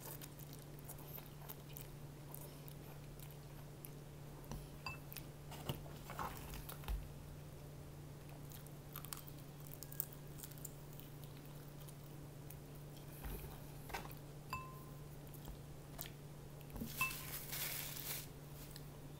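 A person eating instant noodles and fried chicken: quiet chewing and biting with scattered small mouth clicks, over a steady low hum. Near the end, a paper tissue rustles briefly.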